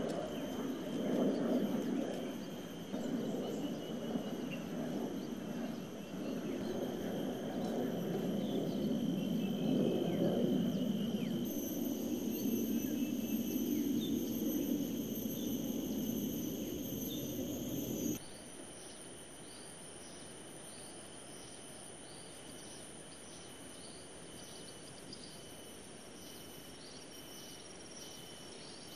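Insects calling outdoors in steady high-pitched tones over a loud, wavering low rumble. The rumble cuts off suddenly about 18 seconds in, leaving the insects, with short chirps repeating about twice a second.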